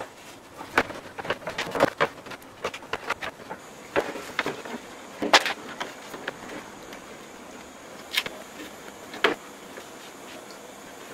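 Irregular sharp clicks and light knocks from hand work on a thin wooden boat frame, with a few louder snaps among them.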